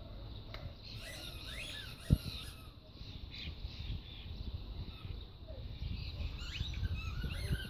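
Small birds chirping and twittering in two short spells over a low background rumble, with a single sharp knock about two seconds in.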